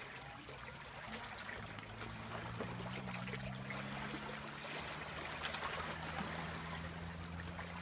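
Shallow seawater lapping and trickling, with faint irregular ticks of small splashes. A low, steady hum comes in about a second or two in and continues.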